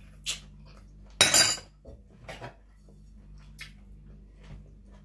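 Dishes being handled: a ceramic plate and utensils clatter, loudest in one longer scrape a little over a second in, with a few lighter clinks after.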